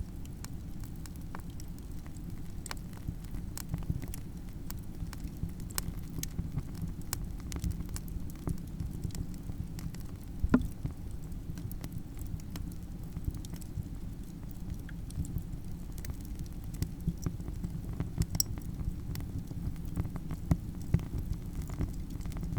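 Campfire crackling: a steady low rush of burning wood with scattered pops and snaps, one louder pop about halfway through.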